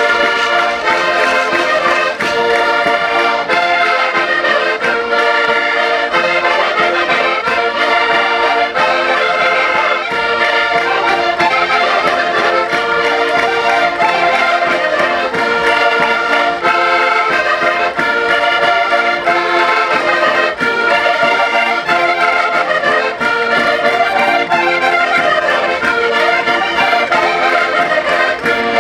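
Several concertinas (diatonic button accordions) playing a chula dance tune, a steady run of quick, rhythmic notes.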